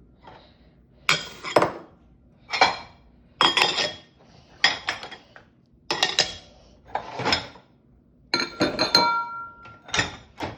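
Dishes and glassware clinking and clattering as they are lifted out of a dishwasher and set down on a counter, one clatter every second or so. Near the end comes a quick run of clinks, one of which leaves a short ringing tone.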